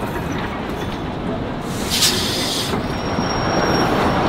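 Heritage railroad passenger coach rolling slowly on steel rails with a steady rumble, a short hiss about two seconds in, then a thin, steady high squeal from the running gear starting about three seconds in as the train pulls up at the station.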